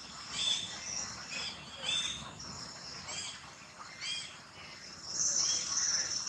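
A series of short, high chirping animal calls, about one or two a second, with a longer steady high call about five seconds in.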